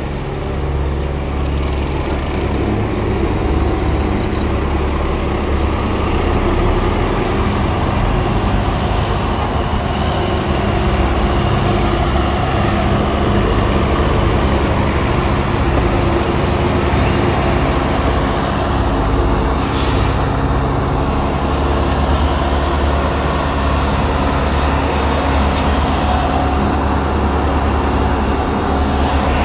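Heavy diesel equipment at a paving job, its engine running steadily at a constant speed, with a short hiss of air about twenty seconds in.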